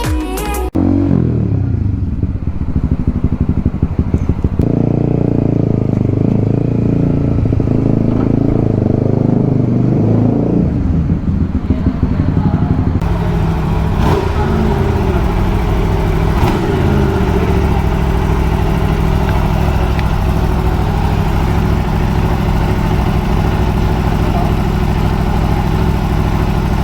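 Aprilia RSV4 sport bike's V4 engine being revved, its pitch sweeping up and down again and again for about the first twelve seconds, then running steadier with a couple of short blips.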